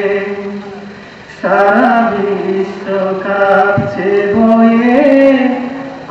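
A man singing a Bengali song solo into a microphone in a chanting style, with long, wavering held notes. The first held note fades away, and a new loud phrase begins about a second and a half in.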